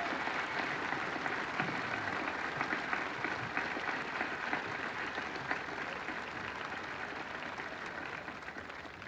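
Large outdoor crowd applauding a line of a speech, many hands clapping at once, gradually dying down.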